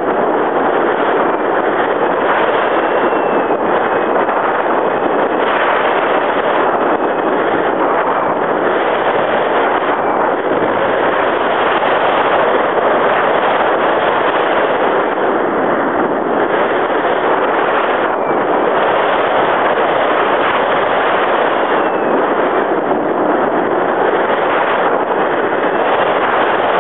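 Loud, steady rush of wind and motor noise from a radio-controlled model airplane in flight, picked up by its onboard camera's microphone, with a faint whine that now and then glides up or down in pitch.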